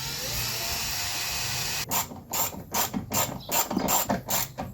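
Cordless drill-driver running for about two seconds with a slight rise in pitch, driving a speaker mounting screw. It is followed by a run of sharp clicks, about three a second, as the clutch slips with the screw seated tight.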